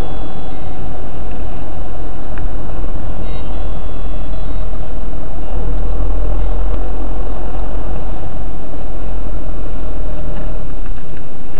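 Steady engine and road noise of a moving car, picked up by a dashcam inside the car: a loud, constant rumble with a heavy low end.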